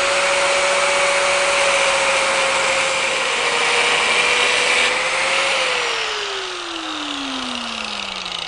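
Angle grinder with a cut-off wheel cutting through a steel bolt held in a vise: a steady motor whine over the hiss of grinding. About five seconds in the cut stops and the grinder is switched off, its whine falling steadily as it spins down.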